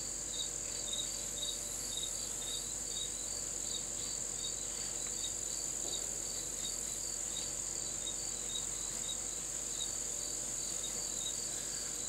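Insects in the background: a steady high-pitched drone with a regular chirp about two to three times a second over it.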